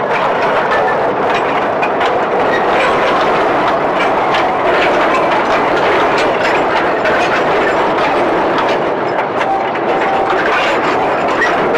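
Narrow-gauge sugarcane railway wagons rolling past close by during shunting, their wheels clattering steadily over the rails with many short metallic clicks and clanks.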